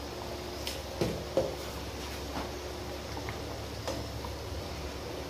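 A steel spoon stirring thick curry in a non-stick pan, with a few light clinks and knocks against the pan scattered through, over a steady low hum.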